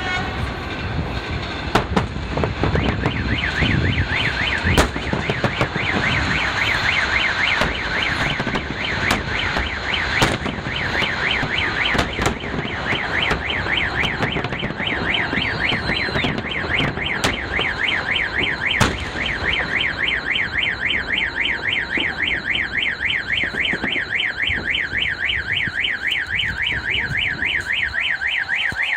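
Fireworks salute bursts banging at irregular intervals, several of them a few seconds apart. From a few seconds in, a car alarm wails with a fast warbling tone that goes on without a break.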